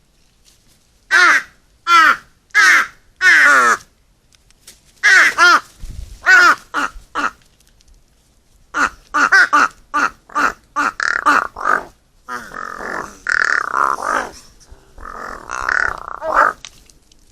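Crows cawing, call after call: a run of four caws, a few more after a short pause, then a quick string of short calls. Near the end come harsher, rasping calls.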